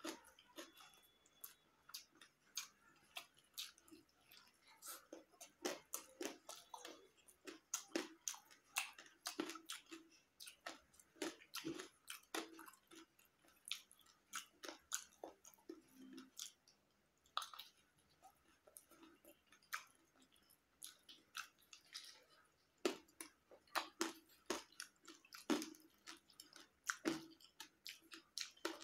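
Close-miked chewing of a hand-eaten mouthful of rice with boiled spiny gourd and egg, with wet mouth clicks and lip smacks coming irregularly, several a second, with a few brief pauses.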